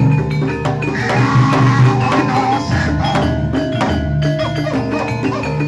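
Javanese jaranan gamelan playing a fast, steady pattern: saron and demung metallophones and kenong over kendang drumming, with a wavering higher melody line joining about a second in.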